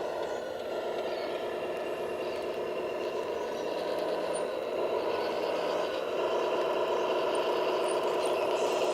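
Radio-controlled construction vehicles whirring steadily from their small electric motors and gearboxes. The sound shifts in pitch and strength a couple of times as they work.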